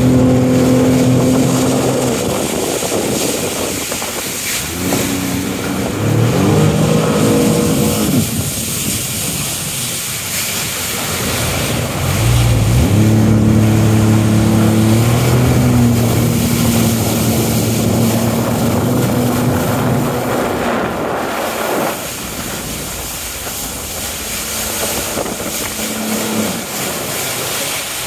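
Jet ski engine revving up and easing off several times as the craft carves tight turns nearby, with water spray hissing and wind buffeting the microphone.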